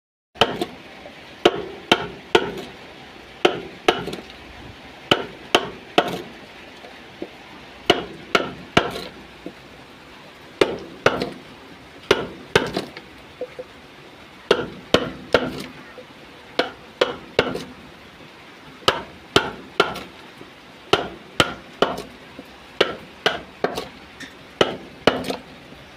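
A hand chisel chopping into the hollow of a wooden trough being carved out: sharp wooden knocks, irregular and often in pairs or threes, about one to two a second.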